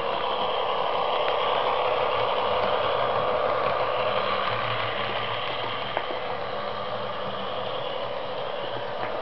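Model trains running on the layout: the steady whir of the locomotives' small electric motors and gears, with wheels rattling over the track and a sharp click about six seconds in and again near the end.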